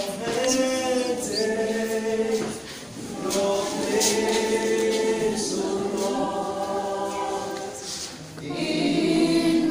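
Group of students singing a gospel chorus together, unaccompanied, in long held phrases with brief breaks about two and a half and eight seconds in.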